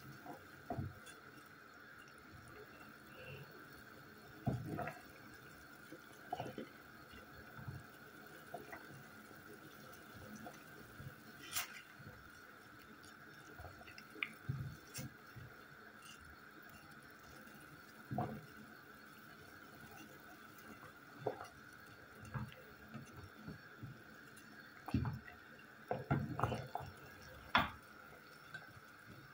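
Pot of water boiling with apple pieces and herbs, bubbling and popping irregularly over a steady faint hiss, with a wooden spoon now and then knocking and stirring in the metal pot, several knocks close together near the end.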